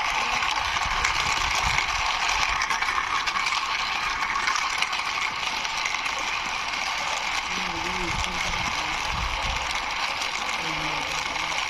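Plastic toy racing car's wheels rolling and rattling as it is pushed by hand along a rough wall, a steady clicking rattle.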